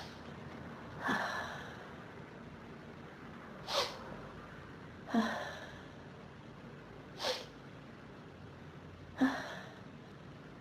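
A person in an allergic sneezing fit, sneezing over and over with sharp breaths around the sneezes. There are about five loud bursts, spaced one to two seconds apart. The fit is brought on by a dust and pollen allergy.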